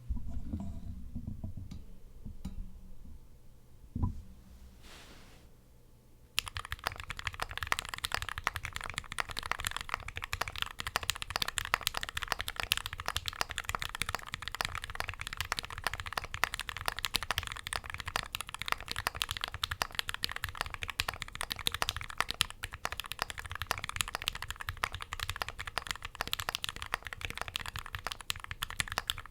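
Typing on a Fallacy mechanical keyboard with lubed Gateron Black Ink V2 linear switches, an aluminium plate and GMK keycaps. Fast, continuous keystrokes begin about six seconds in. Before that there is a low rumble and a single knock about four seconds in.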